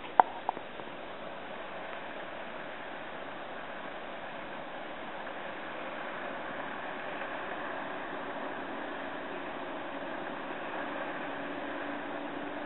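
Hovercraft running: a steady rushing noise, with a faint low hum coming in about two-thirds of the way through.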